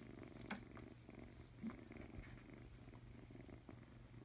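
Grey tabby kitten purring faintly and steadily while being handled, with a couple of soft ticks about half a second and a second and a half in.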